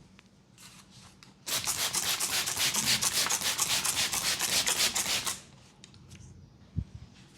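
A massaging barber's hands rubbing briskly and rhythmically, about ten quick friction strokes a second for nearly four seconds, then stopping. A short dull thump follows near the end.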